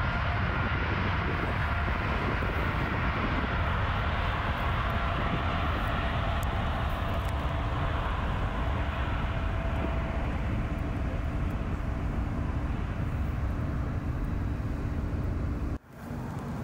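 Airbus A350's Rolls-Royce Trent XWB turbofans at taxi power: a steady jet rumble with a whining fan tone that slowly fades as the aircraft taxis past. The sound breaks off abruptly near the end.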